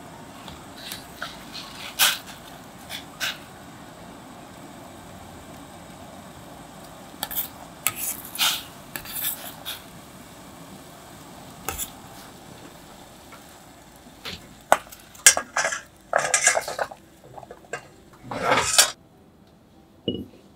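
Metal ladle stirring in a metal saucepan of dashi at a simmer, clinking and scraping against the pot with scattered sharp knocks over a low steady hiss. The clinks and scrapes come thicker and louder in the last few seconds before stopping.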